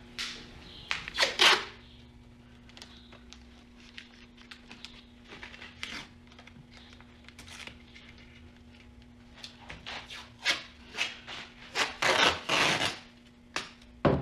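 Rustling, rubbing and scraping handling noises in short bursts: a loud cluster about a second in, scattered small clicks, then a busier run of loud rustles near the end. A faint steady hum runs underneath.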